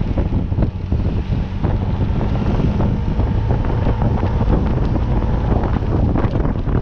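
Wind buffeting the microphone of a moving vehicle, steady and loud, with the vehicle's engine running faintly underneath.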